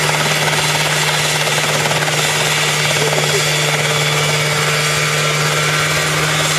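Homemade single-seat helicopter's engine and main rotor running at high power as it lifts off and hovers just above the ground: a steady drone with a strong, even low hum and no change in pitch.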